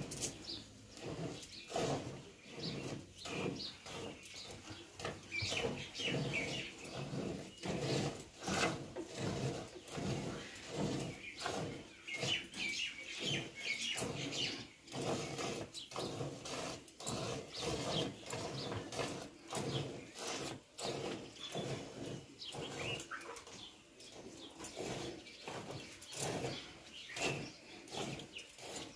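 Milk squirting into a steel pail as a cow is milked by hand, a rhythmic run of streams about two a second as the hands alternate on the teats. Birds chirp in the background.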